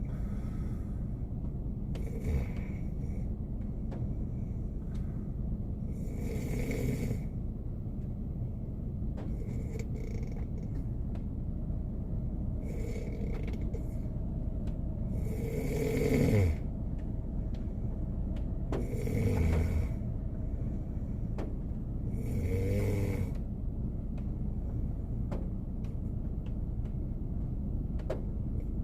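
A man snoring in his sleep, one snore roughly every three seconds, the loudest a little past halfway, over a steady low rumble.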